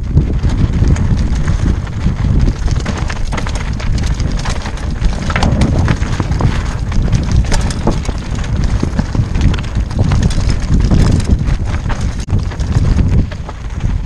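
Mountain bike rolling fast downhill over a loose, rocky dirt trail: tyres crunching over gravel and stones, with many sharp clicks and knocks as the bike rattles over rocks. Wind rumbles heavily on the helmet-mounted microphone.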